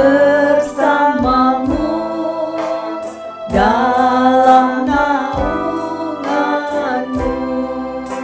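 A woman singing an Indonesian worship song in long held notes, with electric guitar and band accompaniment.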